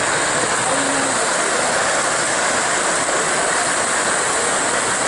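Model passenger train running on layout track: a steady rolling noise from its wheels and motor, mixed with the constant din of a crowded exhibition hall.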